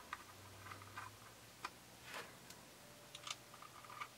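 Faint, scattered small clicks and ticks of handling as stick antennas are screwed onto the FPV monitor's gold SMA connectors, with one soft rustle about halfway through.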